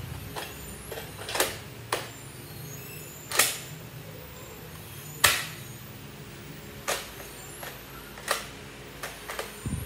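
Nerf Elite 2.0 foam-dart blaster being reloaded and handled: a series of sharp plastic clicks and clacks, about ten in all, with louder clacks about three and a half and five seconds in.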